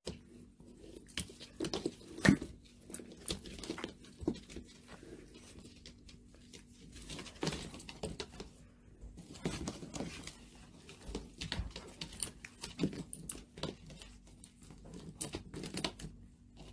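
A Maltese dog pawing and mouthing a nylon harness and leash on the floor: irregular rustling and scuffing with short clicks, the sharpest about two seconds in.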